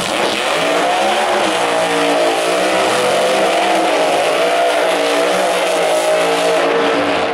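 Drag-racing cars' engines held at high revs through burnouts, the pitch wavering up and down as the tyres spin.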